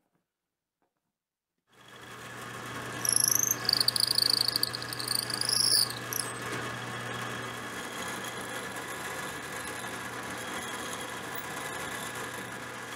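Silent for the first second and a half or so, then a drill press motor runs steadily. For about three seconds a high, wavering squeal rises over it as the bit bores into a solid maple block, and the press keeps running after that.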